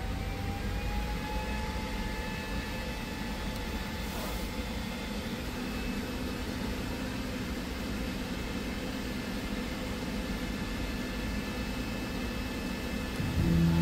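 Steady machine hum and hiss from a powered-up CNC router, with a faint rising whine over the first couple of seconds. Just before the end a louder, steadier hum with a low tone starts up.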